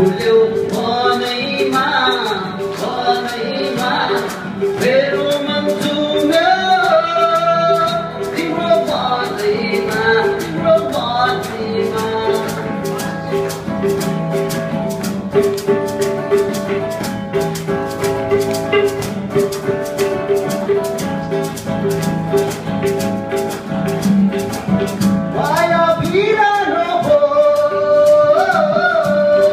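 Live band playing a Nepali song: male voices singing over electric and acoustic guitars and a reedy keyboard instrument, with a steady shaker rhythm. The singing fills the first part and returns near the end, with an instrumental stretch between.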